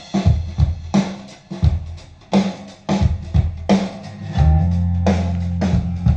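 Band music with drum kit, bass and guitar playing through a mid-1960s Electro-Voice Coronet two-way loudspeaker. Drum beats fall about every three quarters of a second, and a held bass note comes in a little over four seconds in.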